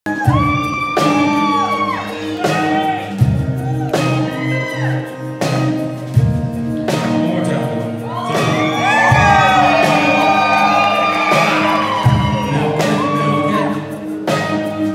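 A live acoustic band plays the intro of a song, with acoustic guitars and keyboard holding chords and regular percussion hits. The audience whoops and cheers over it, loudest a little past the middle.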